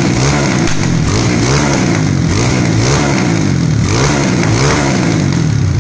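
Honda CG Titan 150's single-cylinder four-stroke engine, bored out to about 238 cc and running on ethanol, being revved in repeated throttle blips, its pitch climbing and falling about once a second.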